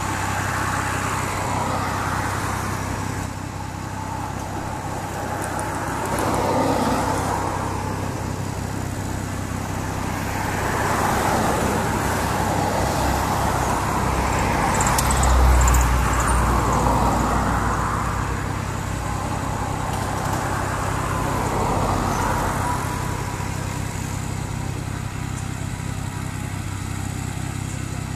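Cessna U206G Stationair's piston engine idling with the propeller turning: a steady low drone, with a rushing noise that swells and fades several times, loudest about halfway through.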